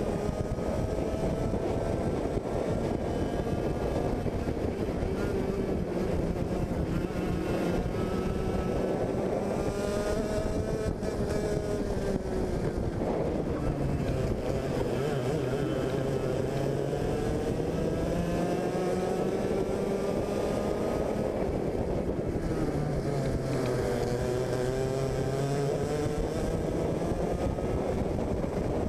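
Yamaha KT100 two-stroke racing kart engine heard close up onboard at race pace. Its pitch climbs as it accelerates and drops off as the driver lifts for corners, several times over.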